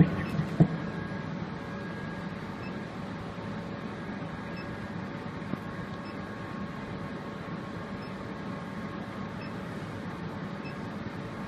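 Steady machine hum with a faint whine, as from an idling motor or cooling fan, with a couple of sharp clicks in the first second.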